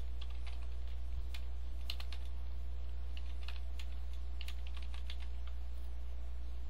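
Typing on a computer keyboard: irregular runs of keystrokes as a line of code is entered, stopping about five seconds in. A steady low hum runs underneath.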